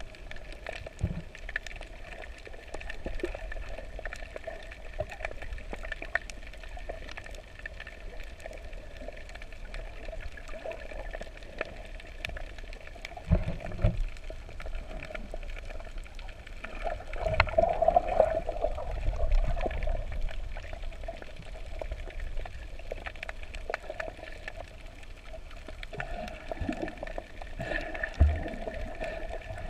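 Muffled underwater sound picked up by a submerged camera: water sloshing and gurgling against it, with a louder stretch about two-thirds of the way through and a few dull knocks.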